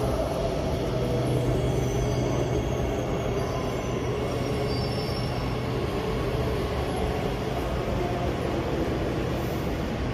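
Steady rumble and low hum of a metro station, with a train running on the tracks; faint high squeals in the first few seconds.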